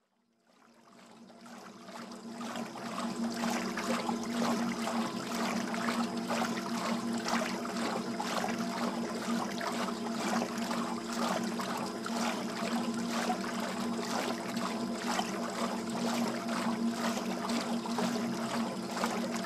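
Water running and splashing, fading in over the first few seconds and then steady, over a low steady hum.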